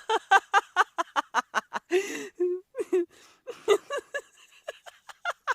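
A woman laughing in quick, repeated bursts, with a breathy intake of breath about two seconds in before the laughter carries on and thins out near the end.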